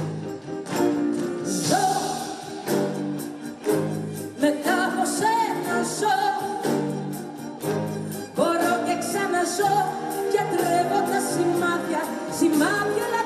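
A woman singing a song live into a microphone, accompanied by an orchestra with a regular percussion beat.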